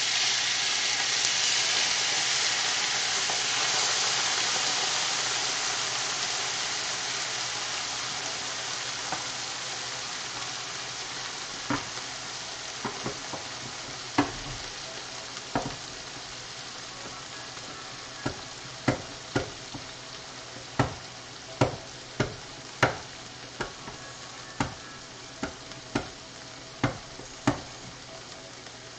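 Tomato sauce hitting hot oil and fried pork rinds in a skillet sizzles loudly at once, the hiss slowly dying down. From about halfway through, a utensil knocks sharply against the cookware in a run of taps, about one a second.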